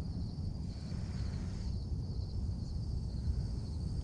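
Wind rumbling on the microphone, with a steady pulsing chorus of insects chirring high above it. About a second in comes a soft whir as the spinning reel is cranked.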